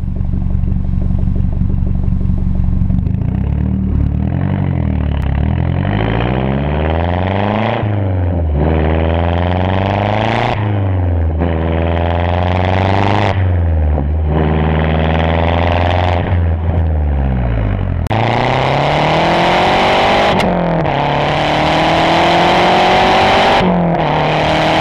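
2008 Mazdaspeed3's turbocharged 2.3-litre four-cylinder through a Cobb high-flow downpipe and straight-piped exhaust. It idles, then pulls hard with a rising pitch broken by three quick upshifts, coasts briefly, and pulls through two more upshifts near the end.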